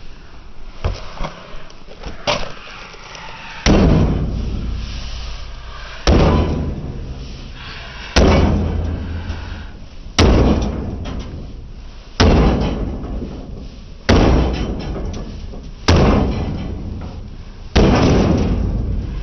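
A microwave oven being struck hard again and again: a few light knocks, then about eight heavy blows roughly two seconds apart, each ringing out briefly.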